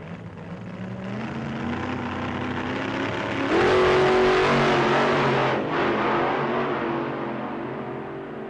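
Car engine revving hard in a burnout. Its pitch climbs in steps, then about three and a half seconds in it jumps to a loud, high-revving hold with a wide rushing noise, and it eases off toward the end.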